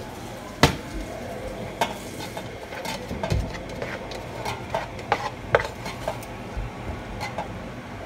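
A spoon stirring and scooping cooked rice and meat in a pot, with irregular sharp clinks and knocks of the spoon against the pot, the loudest about half a second in.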